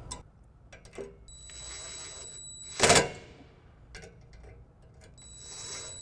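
DeWalt 20V cordless impact driver spinning a nut down with a steady high whine, then hammering in a short, loud rattle about three seconds in as the nut seats. It starts spinning again near the end.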